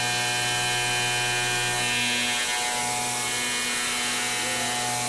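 CNC mill spindle and ShearHog face mill cutting across an aluminium plate: a steady machining hum with a stack of high steady tones, whose pitch pattern shifts about two and a half seconds in.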